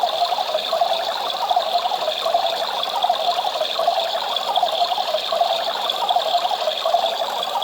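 Battery-operated toy washing machine running: its small motor gives a steady, rattly whirr as the little drum turns, with water churning inside.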